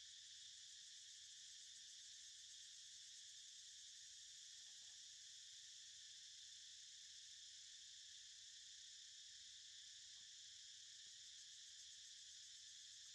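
Faint, steady, high-pitched insect chorus that runs on unchanged.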